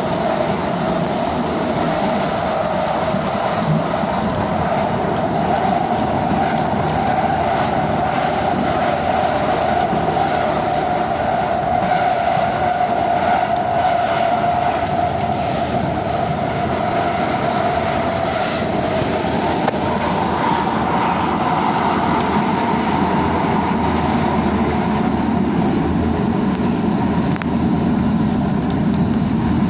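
Tyne and Wear Metro train running at speed, heard from inside the car: a steady rumble of wheels on rail under a constant whine that shifts to a slightly higher pitch about two-thirds of the way through.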